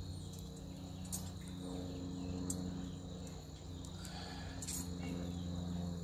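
Insects chirping steadily at a high pitch over a low steady hum, with a few light clicks about one, two and a half, and nearly five seconds in.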